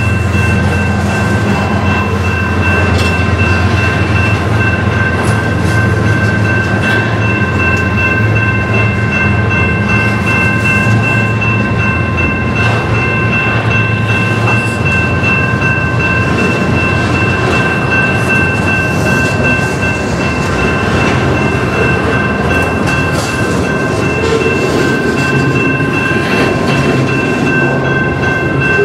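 Double-stack intermodal container train rolling steadily past, its well cars' wheels clattering and rumbling over the rails. The low rumble eases about halfway through. Over it a grade-crossing signal's bell rings continuously as a set of steady high tones.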